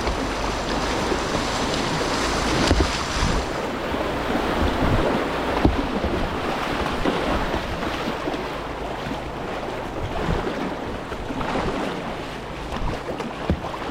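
Rushing whitewater of a river rapid, close to the water, loudest and brightest over the first few seconds, with wind buffeting the microphone and scattered low thumps.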